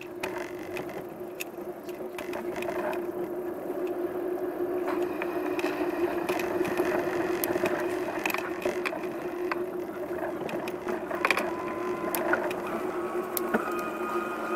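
A bike in motion: a steady hum under scattered clicks and rattles, with a few short higher tones near the end.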